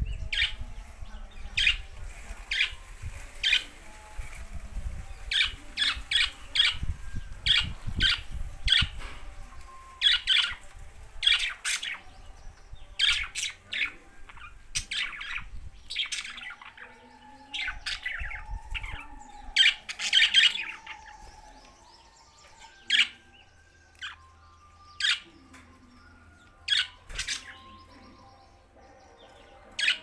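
Budgerigars chirping: many short, sharp calls in quick succession, with some softer warbling midway, growing sparser near the end.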